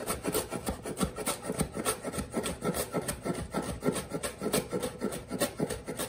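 Chef's knife rapidly chopping fresh cilantro on a wooden cutting board: fast, even knocks of the blade on the board, about five a second.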